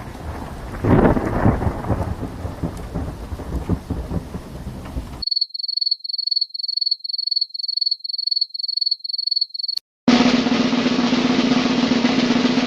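Three sound-effect clips in a row: a noisy rumble for about five seconds, then a short high electronic beep repeating about three times a second, then a loud steady buzzing noise with a low hum underneath.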